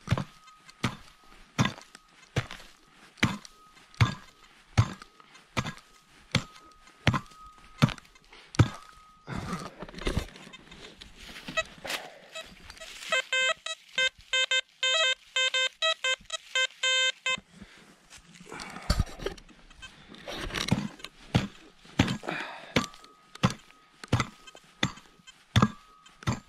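A hand digging tool chops repeatedly into dry, stony ground, a little more than one strike a second. About halfway through, the XP Deus metal detector's coil is swept over the hole and the detector gives a quick run of repeated beeps for about four seconds, marking the metal target still in the soil. Then the digging resumes.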